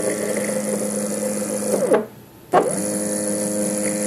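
Y-axis stepper motor, driven at 1/8 microstepping, whining with a steady tone as it is jogged. It stops about two seconds in, is silent for about half a second, then runs again.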